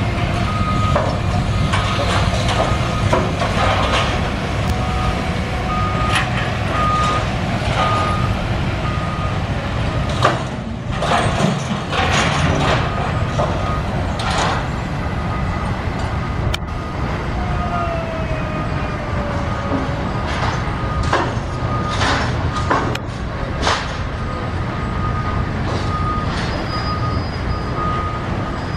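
A heavy vehicle's backup alarm beeping about once a second over a steady engine rumble, with occasional knocks and clanks.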